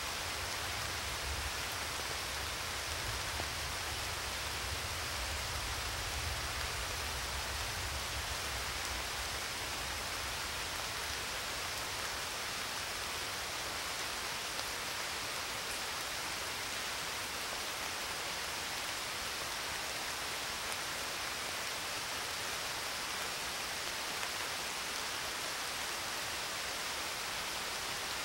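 Steady, even hiss of a rain-like noise bed. A low rumble underneath fades out about ten seconds in.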